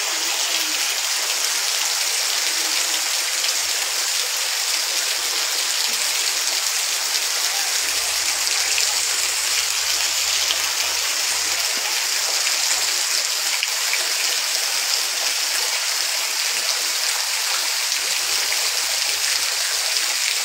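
Torrential rain pouring down in a heavy, steady hiss.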